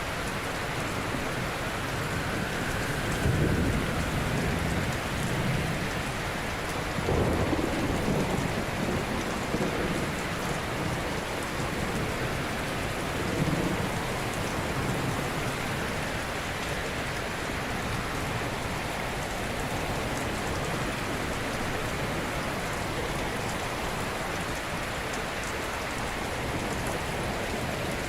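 Ocean surf washing on a shore: a steady hiss of breaking water, with three heavier, deeper surges of waves in the first half.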